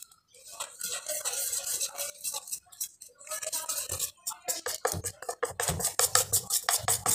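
Wire whisk beating gram-flour (besan) batter in a stainless steel bowl: the wires click and scrape against the bowl in quick repeated strokes, with a short pause about four seconds in and faster, denser strokes after it.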